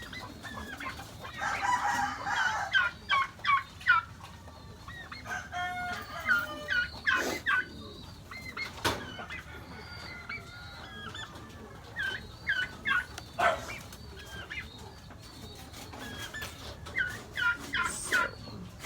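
Chickens clucking in several bursts of short calls, with a few sharp knocks in between.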